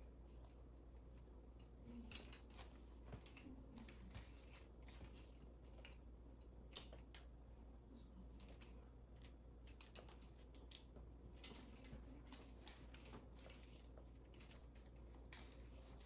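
Near silence over a low steady hum, with faint scattered clicks and rustles as hair is wound on and off a curling iron.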